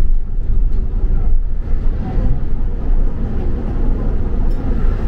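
Low, steady rumble of a double-decker bus's engine and road noise, heard from inside the moving bus.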